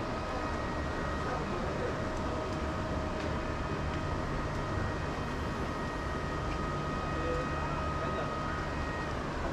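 Steady low rumble and hum with a few faint, thin steady whining tones over it, one of which stops near the end.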